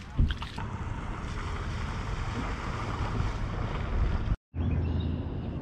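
Wind buffeting the microphone: a steady rushing noise with a bump just after the start. The sound drops out completely for a moment about four and a half seconds in, then the wind noise returns.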